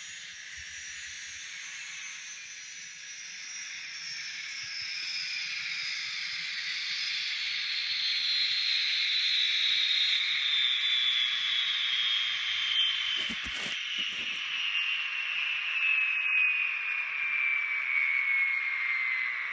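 Model locomotive sound decoder in an N scale Union Pacific GTEL 'Big Blow' gas turbine playing the turbine spooling down: a hissing whine that falls slowly in pitch and grows louder. A couple of short knocks about thirteen seconds in.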